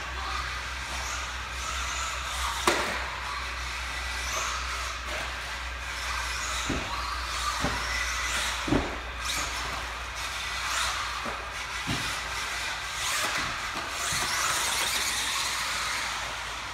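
Team Durango DEX410 1/10-scale electric four-wheel-drive buggy running on an indoor clay track: a high motor whine that rises and falls with the throttle, tyre hiss, and a few sharp knocks.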